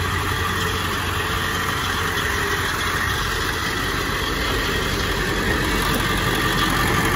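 Ford 7.3L Powerstroke turbo diesel V8 idling steadily, running perfect by the seller's account.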